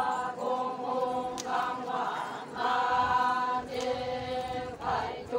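Group of Konyak Naga women chanting a festival song in unison as they dance, in held phrases about a second long with short breaks between them.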